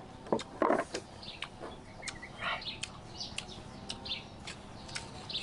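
Kitchen knife peeling the skin off a green mango: a few sharp clicks in the first second, then short, scattered, high scraping strokes.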